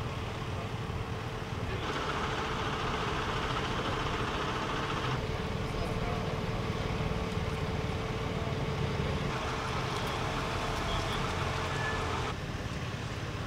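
Street traffic: a steady low engine rumble with a faint constant hum, and louder stretches of passing-car and tyre noise. The sound changes abruptly about twelve seconds in.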